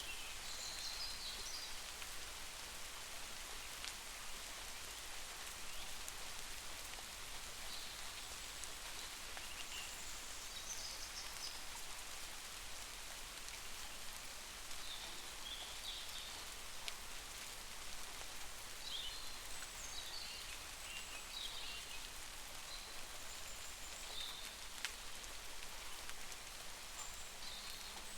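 Steady rain falling, with short high chirps scattered through it.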